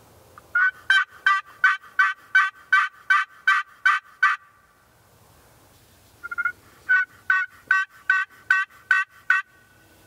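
Two runs of turkey yelps, evenly spaced at about three a second: about a dozen notes, a pause, then a second run of about ten starting some six seconds in.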